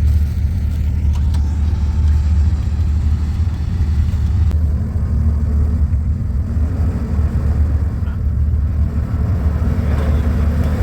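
Off-road truck engine idling, a steady low rumble that holds even throughout.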